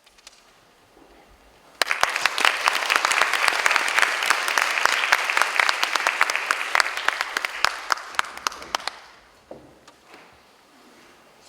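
Audience applause that starts suddenly about two seconds in, holds steady, and dies away near the end.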